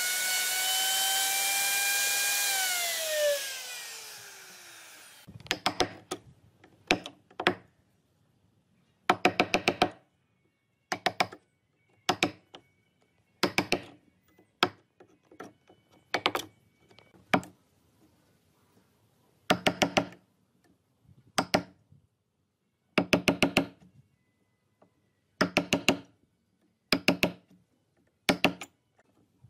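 Electric plunge router running with a high whine, switched off about two and a half seconds in and spinning down. From about five seconds in, a chisel is driven into old wood to chop out a recess: short runs of quick sharp knocks, a cluster every second or two.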